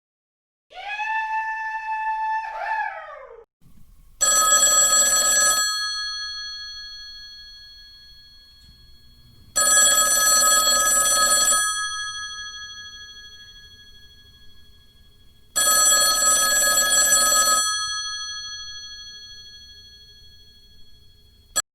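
Old-style telephone bell ringing three times, each ring lasting about a second and a half and fading out slowly, about six seconds apart. Before the first ring, a held pitched sound that slides down in pitch near its end.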